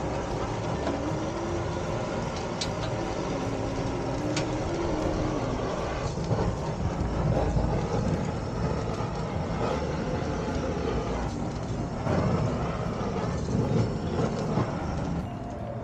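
Handheld butane kitchen torch burning with a steady rushing noise over the griddle, with a couple of sharp clicks in the first few seconds.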